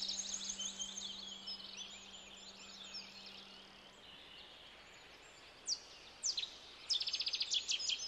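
Small birds singing: varied quick chirps and whistles, then near the end a few sharp downward-sweeping calls and a rapid trill of repeated notes. A low steady hum fades out in the first half.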